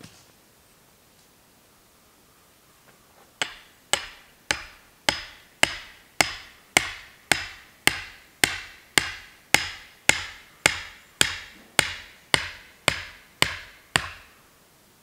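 The back of an axe head driving a wooden stake into the ground: about twenty even strikes, a little under two a second, each a sharp knock with a short ring. The strikes start about three seconds in and stop shortly before the end.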